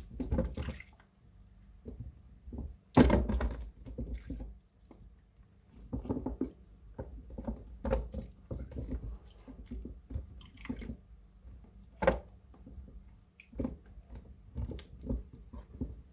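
Soaked glycerin soap plates being washed and handled wet: irregular squelching, dripping and soft thunks, with a loud burst about three seconds in and another sharp one near twelve seconds.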